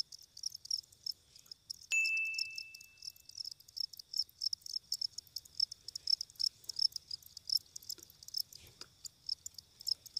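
Field crickets chirping steadily, a quick even run of high chirps at about four or five a second. About two seconds in, a single bright ding rings out and fades over a second and a half.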